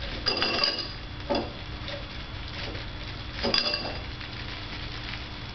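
Ice cubes dropped by hand into a drinking glass, clinking against the glass in three short bursts: about half a second in, just after a second, and about three and a half seconds in.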